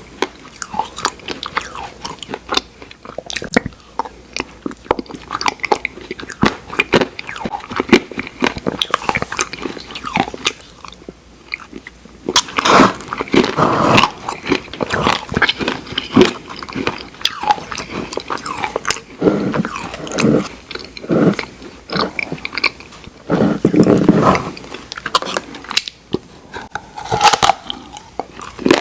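Close-miked ASMR eating of Oreo ice cream: biting and chewing mouth sounds with many quick wet clicks and smacks, louder in a few stretches midway and towards the end.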